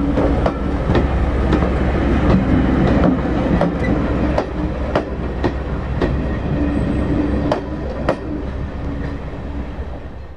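Railway coaches rolling past close by, their wheels clicking irregularly on the rails over a steady low rumble. The sound fades in the last few seconds as the train moves away.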